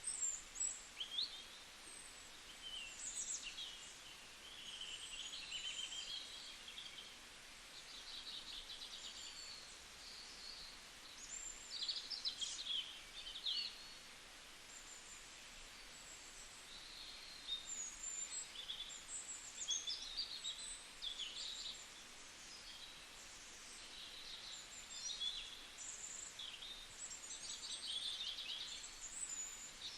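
Birds calling and chirping over a faint steady background hiss: many short high chirps and whistles overlap, with a few quick trills around a third of the way in and again near the end.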